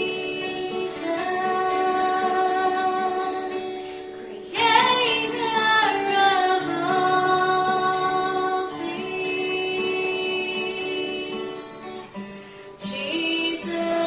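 Music: a song with a woman singing over strummed acoustic guitar, with fresh strummed chords about four and a half seconds in and again near the end.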